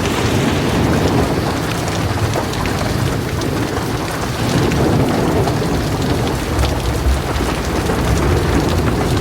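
Heavy rain falling steadily with low thunder rumbling underneath, swelling a little around the middle of the stretch.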